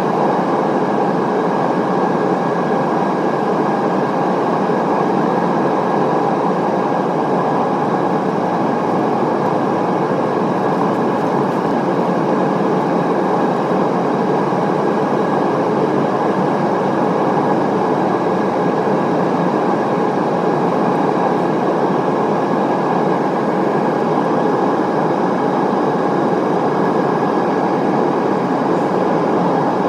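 Airbus A320neo cabin noise in flight: a steady rush of airflow and engine drone with a faint constant whine.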